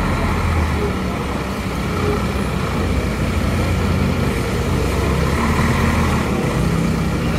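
Large diesel bus engine running steadily at low revs, a continuous low drone.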